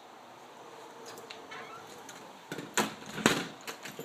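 Two sharp knocks about half a second apart in the second half, with a few fainter clicks around them, over low room tone.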